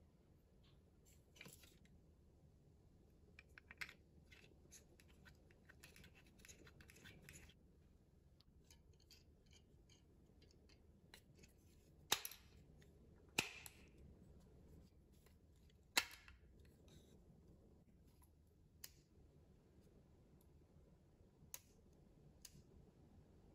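Small plastic parts of a kit film projector being handled and fitted together: faint rubbing and ticking, with three sharp plastic clicks about halfway through as a battery is pressed into its holder, and a couple of lighter clicks near the end.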